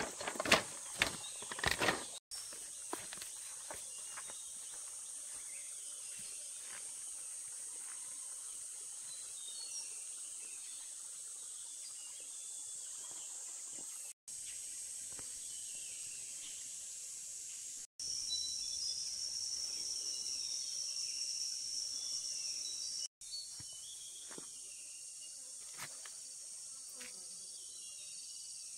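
Steady, high-pitched chorus of insects trilling, with a louder, lower-pitched insect trill joining for about five seconds past the middle. A few sharp knocks sound in the first two seconds.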